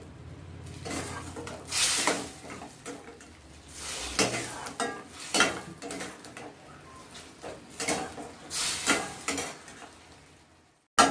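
Metal spatula scraping and stirring potatoes through a thick spice gravy in a stainless steel pan, in strokes a second or so apart over a low sizzle, as the masala is fried down with the potatoes (kosha). The sound cuts out briefly near the end.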